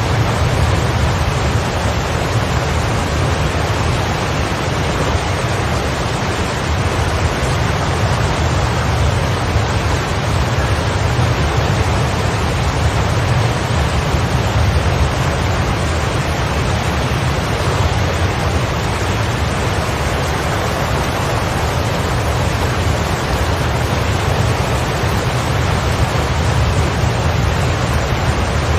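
Heavy rain falling in a steady, even rush with no single drops standing out, heaviest in the low end.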